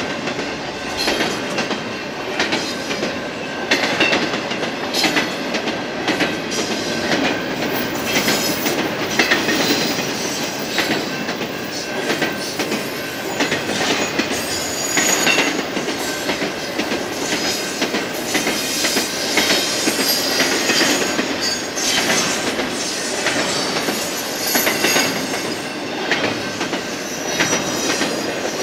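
Double-stack intermodal freight train's well cars rolling past at steady speed: a continuous wheel-on-rail rumble with irregular clacks of wheels over rail joints, and now and then a brief high wheel squeal.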